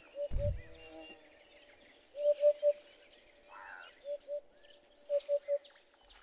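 Bush birdsong: one bird repeats a low hooting note in groups of two or three, while other birds add higher chirps and a short fast trill. A brief low rumble sounds about half a second in.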